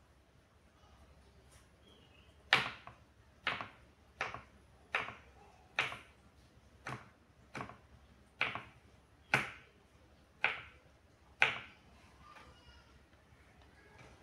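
Kitchen knife chopping tempeh on a wooden cutting board: about eleven sharp knocks of the blade hitting the board, roughly one a second, stopping near the end.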